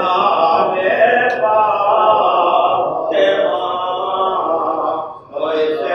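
A man chanting a mourning elegy in long, held melodic phrases, with a short pause for breath about five seconds in.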